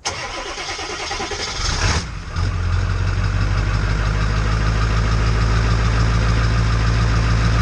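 Ford F-250's 7.3L Powerstroke V8 turbodiesel cold-starting: it cranks for about two seconds, catches, and settles into a steady, heavy idle.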